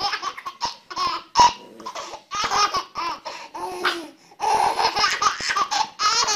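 A baby laughing hard at a puppy: high-pitched squealing giggles in about three bouts, with short breaks between them.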